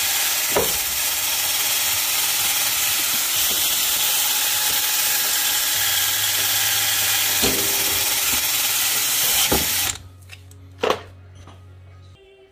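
Cordless Metabo drill spinning a brush wheel against the quad's variator shaft, scrubbing the freshly recut thread clean. It runs steadily for about ten seconds, then stops suddenly, followed by a single short knock.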